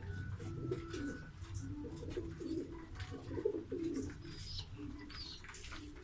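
Pigeons cooing, a run of low warbling coos repeated throughout, with light clicks and scratches in between.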